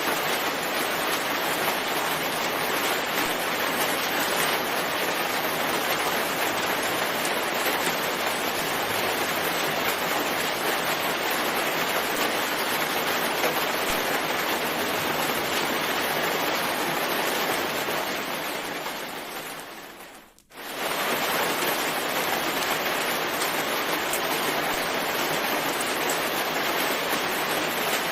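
Steady, heavy rain falling. It fades away for a moment about twenty seconds in, then comes straight back.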